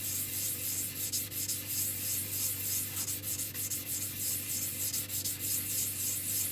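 A Petoskey stone being rubbed back and forth on wet 1200-grit sandpaper, a steady rhythmic scrubbing hiss. This is the final fine-grit hand sanding, done until the stone starts to glide smoothly on the paper.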